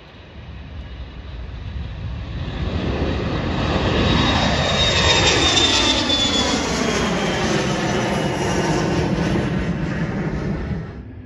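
Jet airplane taking off and climbing out, its engine noise swelling over several seconds as it passes overhead, with a high whine at the loudest point and sweeping, phasing bands in the sound. The noise cuts off abruptly near the end.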